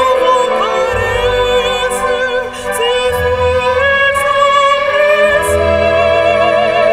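Woman singing opera in a classical style, holding long notes with a wide vibrato, over an instrumental accompaniment with deep bass notes swelling underneath. She pauses briefly about two and a half seconds in, then takes up a new held note.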